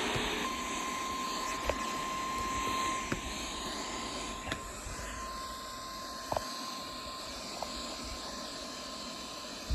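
Weather-radio warning alarm tone: one steady tone of about 1050 Hz held for about nine seconds, the alert signal that comes before a warning message. It sits over a steady noisy background with a few soft clicks.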